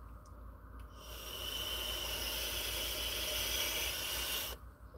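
A long draw on a handheld vape: a steady hiss of air pulled through the device, starting about a second in and stopping abruptly near the end.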